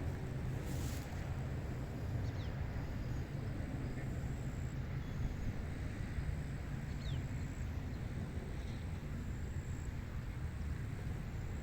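Outdoor wind ambience: a steady low rumble and hiss of wind, with a few faint, short falling bird chirps scattered through.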